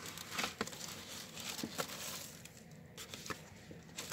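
Paper rustling and crinkling with light taps and ticks as craft items are pulled out of a paper envelope and handled. The rustling is busiest in the first half and thins out after about two seconds.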